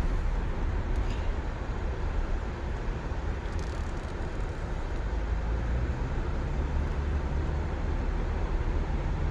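Car driving along, heard from inside the cabin: a steady low rumble of road and engine noise.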